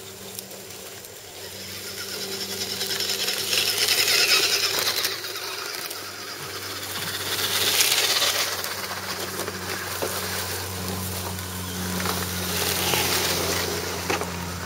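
Several 1:10 scale RC crawler trucks crawling over roots and dry leaf litter: a steady low hum of their electric motors and gearboxes, with swells of crackling leaves under the tyres, loudest about four and eight seconds in.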